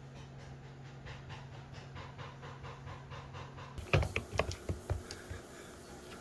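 A faint sound repeating about four times a second over a low steady hum. Then, about four seconds in, a quick run of sharp taps and thumps, the loudest first: a kitten batting and pouncing on a fabric wand toy on a hardwood floor.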